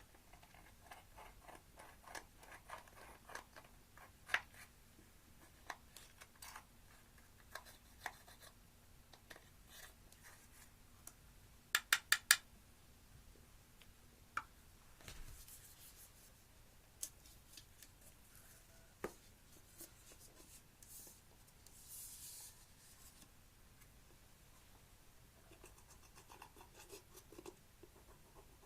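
Hands working slime, making scattered small clicks, crackles and light rubbing, with a quick run of four sharp snaps about halfway through.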